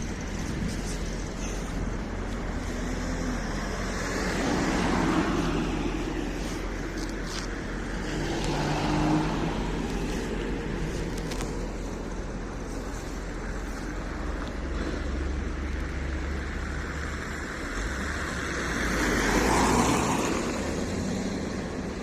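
Road traffic: motor vehicles passing by, with three swells as cars go past, the last and loudest near the end.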